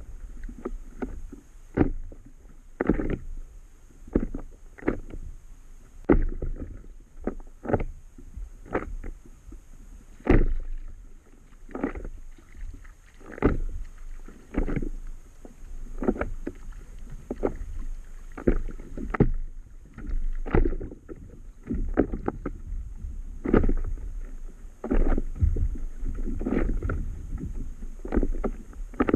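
Small waves slapping against the hull of an inflatable paddle board, an irregular run of sharp slaps about once or twice a second over a steady low rumble.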